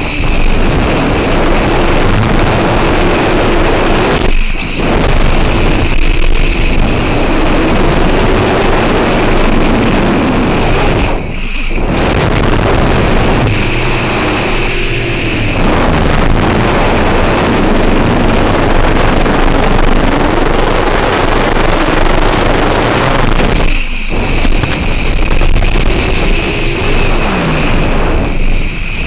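FPV drone's electric motors and propellers whining loudly over heavy rushing air, the pitch gliding up and down as the throttle changes. The sound dips briefly a few times as the throttle is cut.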